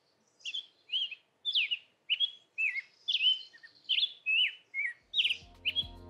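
A songbird singing a run of short, clear whistled phrases, about two a second, some sliding down and some up. Music comes in faintly near the end.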